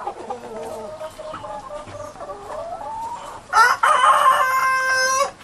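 Chickens clucking, then a rooster crows once, loudly, about two-thirds of the way in, for under two seconds.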